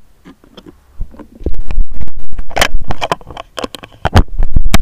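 Loud rubbing, scratching and knocking on a hand-held phone's microphone as it is carried, with low rumbles like wind buffeting, starting about a second in.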